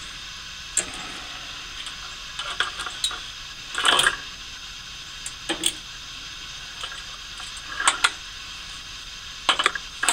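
Metal tongs clinking and scraping against a charcoal grill's steel cooking grate, a handful of separate sharp knocks over a steady background hiss, the loudest about four seconds in.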